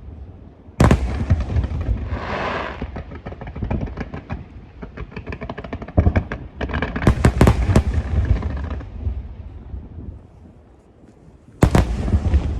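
Aerial fireworks going off: sharp bangs about a second in, a cluster around six to seven and a half seconds, and another near the end, with rapid crackling in between.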